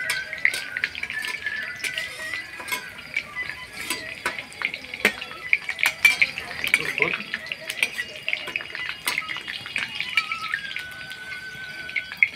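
Steel slotted skimmer scraping and clinking against a kadai, stirring onions, capsicum and garlic frying in oil, with a steady sizzle underneath.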